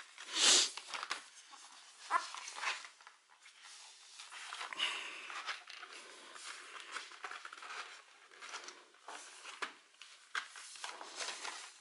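Fold-out DVD box-set packaging being handled on a table: rustling, scraping and a few light knocks as it is folded and pushed but won't close. The loudest is a short rustling burst about half a second in.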